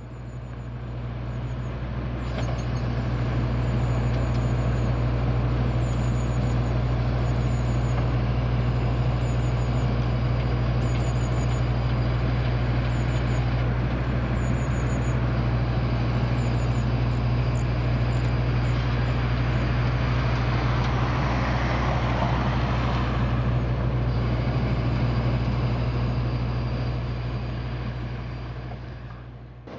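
Claas Tucano 440 combine harvester's diesel engine running steadily at constant speed with a deep hum, building up over the first few seconds. A brief louder hiss rises about two-thirds of the way through, and the sound fades out at the end.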